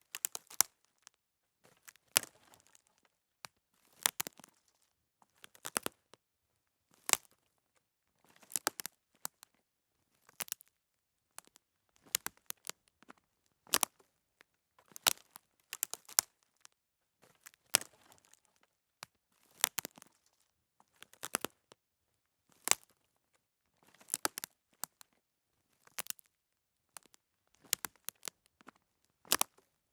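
Slow footsteps on dry twigs and brush: each step a short cluster of snapping, crackling cracks, about one step every second and a half.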